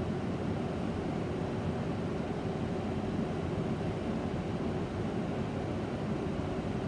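Steady low rush of a laboratory fume hood's exhaust airflow, even and unbroken throughout.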